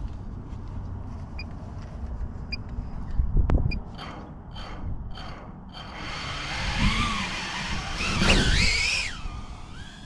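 A 2-inch FPV micro quadcopter's motors and propellers spinning up with a high whine that wavers and rises in pitch, loudest just before it lifts off near the end. Earlier there is a single thump.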